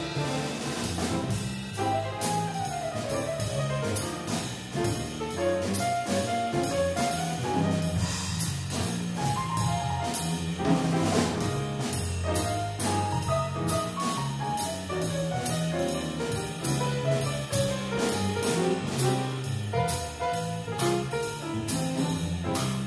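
Live jazz played on a Baldwin grand piano over an electric bass line, with a steady drum beat ticking about three times a second.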